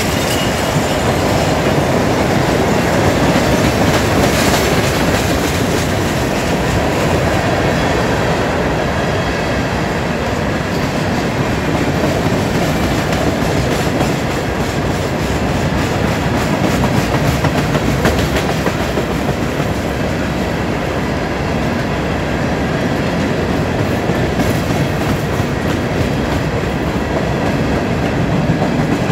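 Freight train of CSX open-top hopper cars rolling past at close range: a loud, steady rumble and clatter of steel wheels on the rails.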